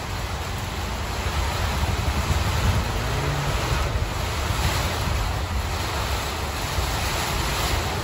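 Strong, gusty storm wind rushing steadily and rumbling hard on the microphone as monsoon rain begins to fall.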